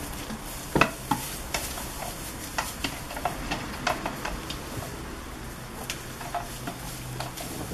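A goat's hooves knocking and clicking on a small wooden stool as it climbs up and shifts its footing. The sharpest knock comes about a second in, followed by a run of lighter irregular taps, over a steady low hum.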